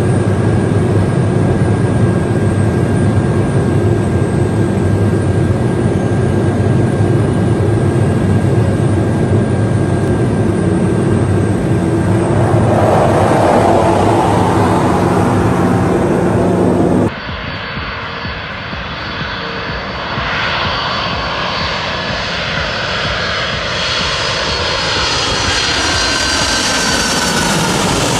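Aircraft engine noise: a steady loud drone of formation flight that swells as a Swiss F/A-18 Hornet jet passes, then an abrupt cut to a Lockheed C-5M Super Galaxy's four turbofans passing low overhead, a rising whine with its lower pitch sliding down and growing louder toward the end.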